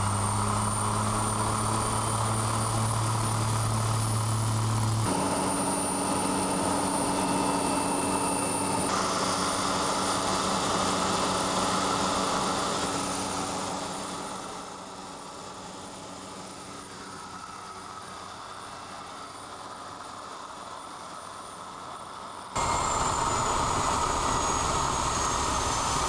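Engine and propeller of a single-engine floatplane, heard from inside the cockpit as a steady loud drone. The drone drops quieter for several seconds past the middle and jumps back loud near the end.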